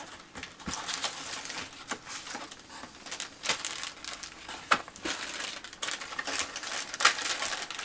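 Clear plastic bags of model kit parts crinkling and rustling as they are handled, an irregular crackle with a few sharper crackles along the way.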